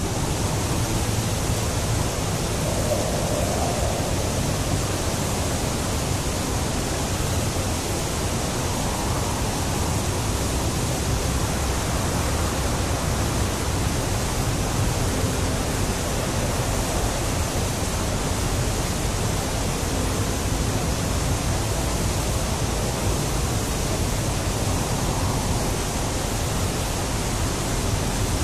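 Steady rushing of fast-flowing water, even in level, with no breaks.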